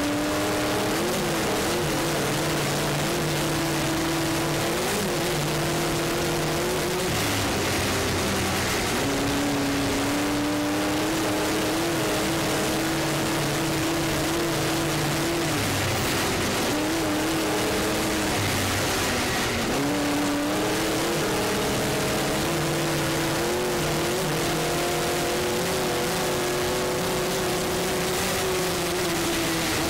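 Off-road race truck engine heard from its onboard camera, running hard at near-constant high revs over the rush of wind and track noise. The revs dip briefly and climb again three times, roughly a quarter, half and two-thirds of the way through.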